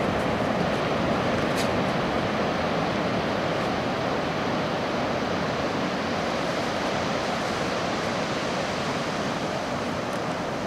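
Sea surf breaking and washing onto a sandy beach: a steady, even rush of noise.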